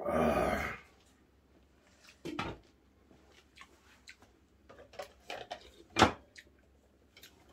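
Tableware sounds of people eating: spoons and chopsticks clicking and knocking against bowls in scattered strokes, with a louder clatter right at the start and one sharp clink about six seconds in.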